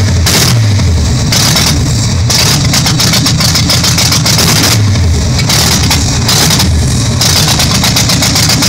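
Carbureted Chevrolet small-block V8 running just after starting, its speed rising and sagging unevenly several times instead of holding a steady idle. The uploader puts this down to the engine not getting enough fuel from the Holley carburettor.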